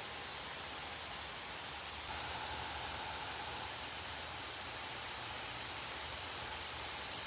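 Fine water spray falling on garden plants and paving, a steady hiss that rises slightly about two seconds in.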